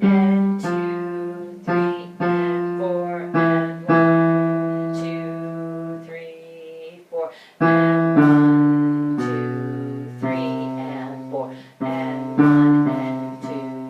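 Piano playing a slow line of struck notes and chords that fade after each strike, in a low register: the men's rehearsal part, the alto line an octave lower.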